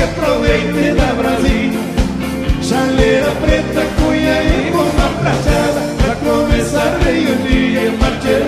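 Live gaúcho band music: accordion held notes over a steady, evenly paced drum beat.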